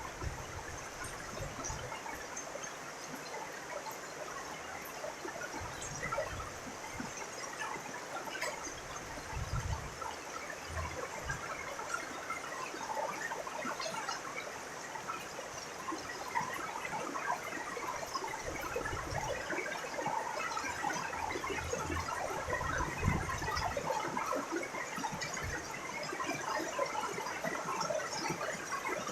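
Rain falling steadily, a dense patter of many small drops, with occasional low rumbles that come and go.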